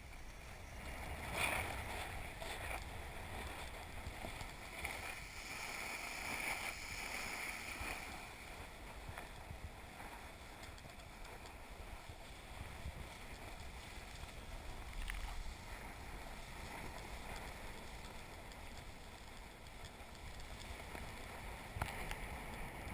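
Skis sliding over packed, groomed snow on a downhill run: a steady scraping hiss, with a few louder swishes in the first several seconds.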